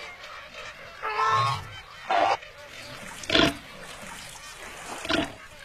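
Four short, loud animal calls, goose-like honks. The first, about a second in, is the longest; the others come at uneven gaps after it.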